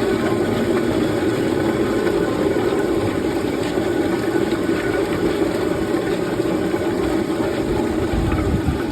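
Sweet potato peeling machine running steadily, a continuous mechanical drone without pause.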